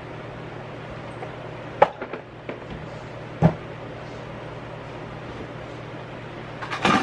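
Household objects being handled: a sharp knock about two seconds in with a few light clicks after it, a louder knock about halfway through, and a short clatter near the end. A steady low hum runs underneath.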